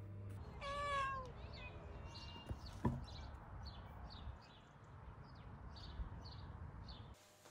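A domestic cat meows once, its pitch rising then falling, about half a second in. Birds chirp in short, high, evenly spaced notes about twice a second after it, and a single sharp knock sounds near three seconds in.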